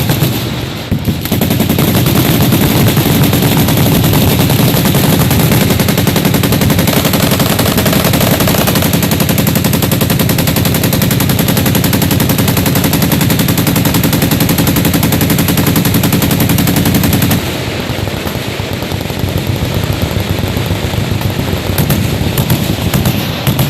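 Sustained automatic fire from machine guns on a firing line, several firing at once in a dense, continuous clatter of shots. About three quarters of the way through it grows lighter, with fewer guns still firing.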